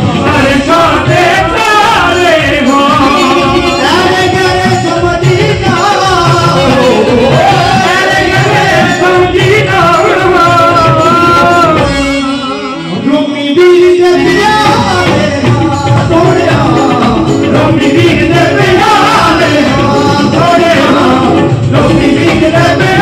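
Live Punjabi devotional song: male voices singing through microphones and loudspeakers, backed by a keyboard instrument and hand percussion. The music thins out briefly about twelve seconds in, then resumes at full strength.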